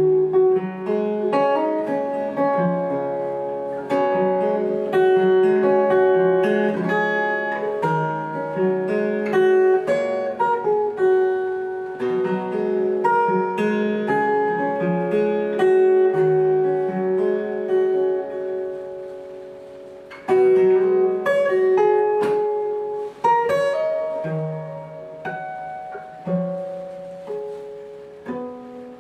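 Solo acoustic guitar played fingerstyle: a plucked melody over bass notes, each note ringing and fading. The playing fades softer and then comes back with a strong chord about twenty seconds in.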